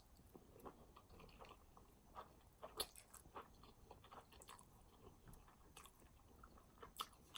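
Faint mouth sounds of a person chewing food, with scattered small clicks and smacks.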